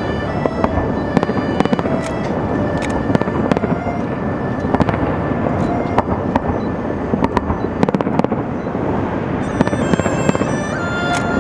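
Aerial fireworks display: shells bursting in a dense, continuous crackle with many sharp bangs, packed closely throughout.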